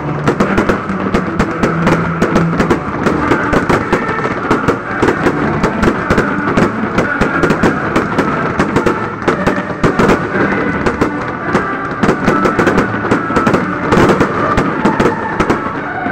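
Aerial fireworks bursting and crackling in a dense, rapid barrage of sharp cracks and bangs, with music playing underneath.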